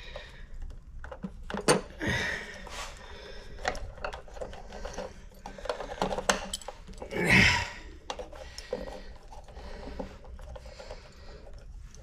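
Hands working electrical wires and plastic wire nuts in the junction box of an electric water heater: scattered small clicks, taps and rustles as the conductors are twisted together and capped. There is one louder rushing burst a little past halfway.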